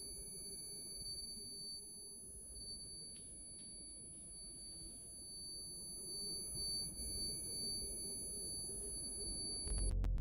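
A steady high-pitched electronic tone over a low rumble, ending in a brief low swell that cuts off suddenly.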